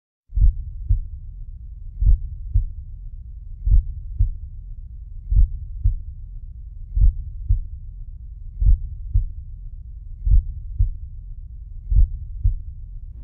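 A slow heartbeat: pairs of low thumps, lub-dub, about every second and a half, over a steady low rumble.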